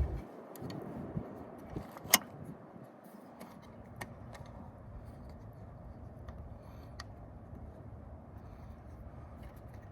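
Scattered sharp clicks and taps, the loudest about two seconds in, over a steady low background rumble.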